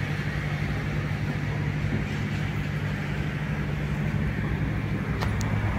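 Scania S 580's V8 diesel engine idling steadily, an even low hum. Two light clicks sound about five seconds in.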